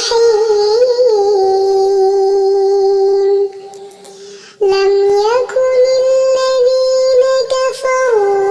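A high voice chanting Quran recitation in a melodic tajwid style, drawing out long held notes that bend between pitches. About three and a half seconds in it breaks off for about a second for a breath, then resumes.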